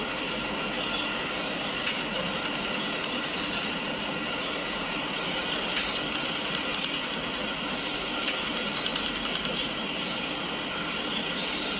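Spot laser welding machine firing pulse after pulse, heard as rapid, evenly spaced ticks in three runs of one to two seconds each, over the machine's steady running noise.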